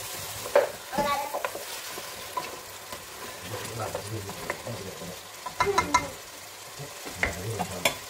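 Fish pieces sizzling in spiced masala in an aluminium pot while a wooden spatula stirs them, with a few sharp knocks and scrapes of the spatula against the pot, loudest about half a second in and in a cluster around six seconds in.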